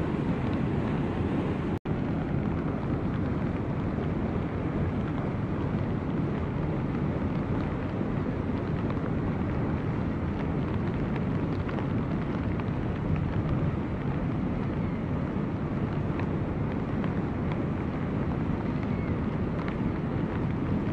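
River ice drift: a steady low rush of water carrying ice floes, with faint scattered crackles and clinks of ice grinding against ice. The sound drops out for an instant about two seconds in.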